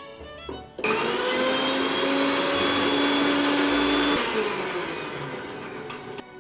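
Butterfly mixer grinder switched on with a small steel jar of egg and sugar, its motor running with a steady whine for about three seconds, then switched off and spinning down with a falling pitch.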